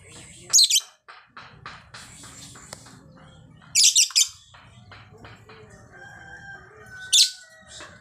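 Female lovebird calling: three loud, shrill shrieks, about half a second, four seconds and seven seconds in, with quick, short chattering chirps between them.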